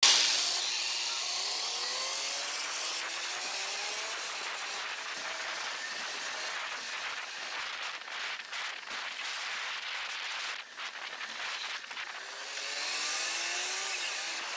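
Wind and road noise from riding a bicycle in a bus lane, with a city bus engine rising in pitch as it accelerates, once about a second in and again near the end.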